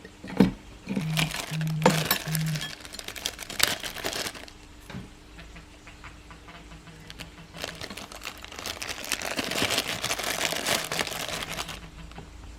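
Handling of a 1:2-scale miniature M4A1/AR-15 replica: a few sharp clicks in the first five seconds, then a longer stretch of rustling.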